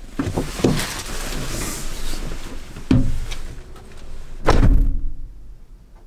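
A person shifting and climbing out of a Suzuki kei truck's cab, with clothing rustle and handling noise, a clunk about three seconds in, then the door shut with a heavy thud about a second and a half later.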